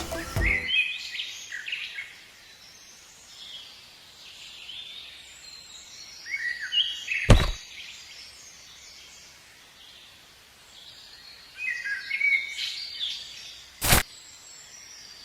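Birds chirping in three short bursts of quick high calls. A sharp click comes about seven seconds in and another near the end.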